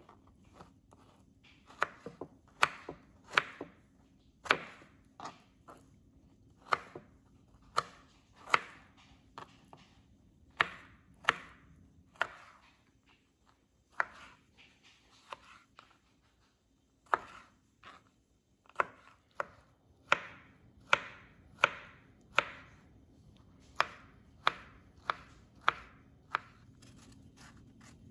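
Kitchen knife slicing strawberries and grapes on a plastic cutting board, each cut ending in a sharp tap of the blade on the board. The taps come irregularly, about one or two a second, with a short pause about halfway through.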